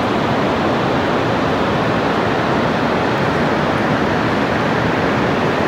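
Steady rush of a fast mountain river: an even, unbroken noise.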